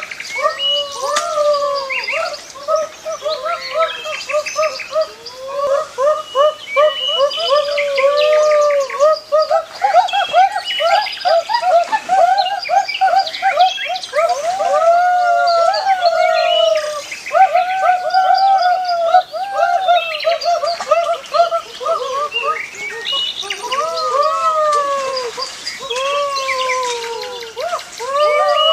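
A chorus of animal calls: many overlapping cries, each rising then falling in pitch, going on without a break.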